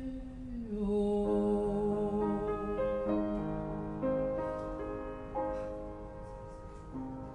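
Grand piano playing slow, sustained chords that change every half second or so, fading gradually. A held sung note slides down and ends in the first second.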